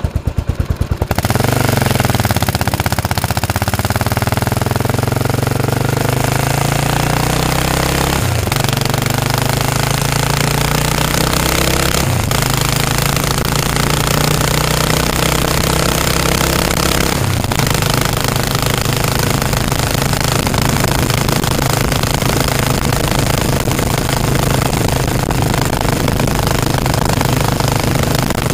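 Yamaha SR500 single-cylinder four-stroke engine fitted with a Ducati silencer, quite loud: thumping pulses at first, then it pulls away about a second in and climbs in pitch, with brief breaks at gear changes about 8, 12 and 17 seconds in, then runs steadily at speed.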